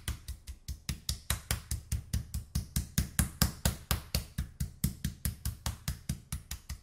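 Metal meat mallet pounding a raw chicken breast flat on a plastic cutting board: a fast, even run of thuds, about five a second.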